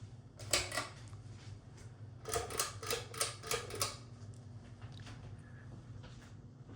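A 44-inch Hunter Cool Revolutions ceiling fan's motor running with a steady low hum. Sharp clicks break in twice: a couple about half a second in, then a quick run of about seven clicks, roughly four a second, a little over two seconds in.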